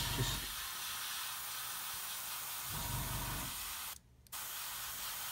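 Airbrush spraying thinned acrylic paint: a steady hiss of air and paint. It stops abruptly for a moment about four seconds in, then resumes.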